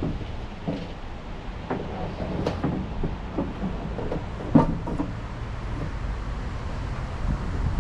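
Irregular knocks and clunks, a handful over a few seconds with the loudest about four and a half seconds in, over steady wind noise on the microphone.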